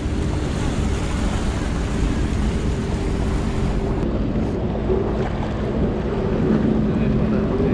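Jet ski engine running steadily at cruising speed, with water rushing and splashing against the hull and wind buffeting the microphone.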